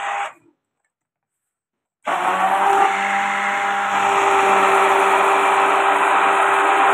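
Silver Crest stick blender motor running steadily at high speed in a plastic beaker of milkshake, a continuous whirring whine. The sound cuts out to dead silence about half a second in and picks up again, running steadily, about two seconds in.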